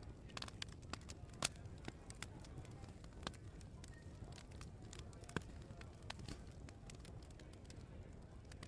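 Open wood fire crackling: irregular sharp pops and snaps, two louder ones about a second and a half in and five and a half seconds in, over a low steady background murmur.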